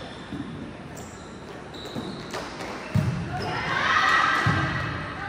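Volleyball play on an indoor court: a few sharp thuds of the ball being hit, the strongest about three seconds in and another a second and a half later, with short squeaks and players' voices.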